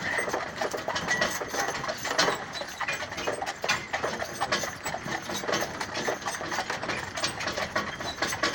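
Horse-drawn carriage in motion behind a two-horse team (a Haflinger and an Appaloosa): a steady, irregular run of clicks and rattles from the hooves on the road, the turning wheels and the harness.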